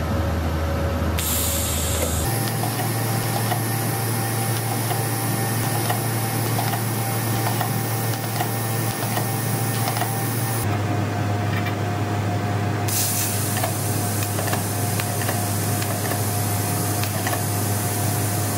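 TIG welding arc on the runners of a turbocharger exhaust manifold, reinforcing the cracked factory welds from the outside: a steady hiss with a low hum and a faint steady tone. The sound shifts abruptly about two seconds in and again about ten seconds in.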